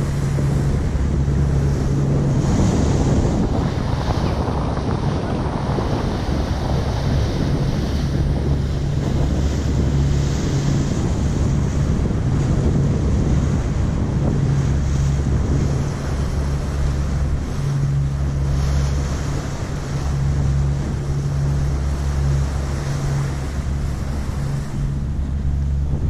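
Wind gusting and rumbling on the microphone on the open deck of a moving ferry, over a steady rush of water along the hull.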